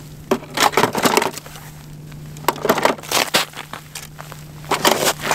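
Crunching and scraping on snow-covered ice in three irregular bursts, as ice-fishing gear is gathered up and boots shift in the snow.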